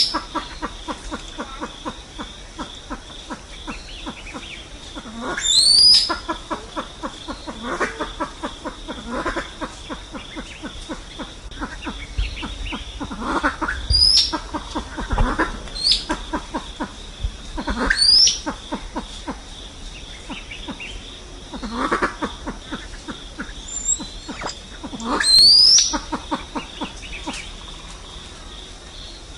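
Lophura pheasants giving flock-gathering calls. Loud, steeply rising whistled squeals come about every two to four seconds, about seven in all, over a fast run of short clucking notes.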